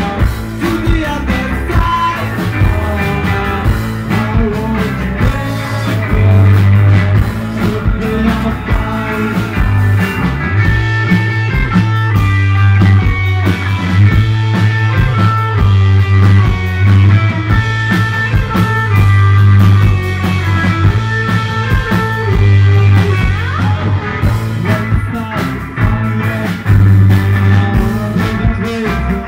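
Live rock band playing loudly: electric guitars over a drum kit, with a heavy, steady low end.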